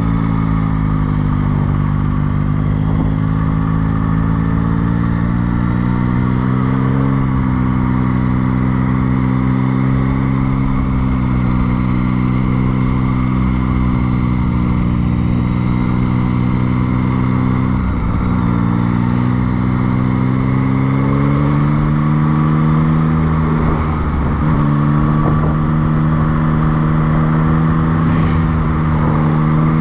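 Motorcycle engine running under way, its note rising and falling with the throttle, with a few sharp dips in pitch.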